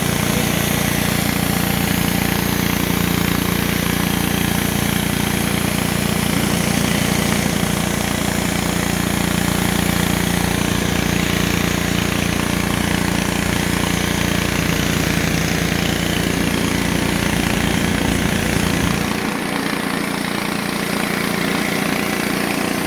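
Pressure washer engine running steadily under load, with the hiss of water jetting from a Ridgid 18-inch surface cleaner as it is pushed over concrete. About 19 seconds in, the low rumble drops away and the sound thins slightly.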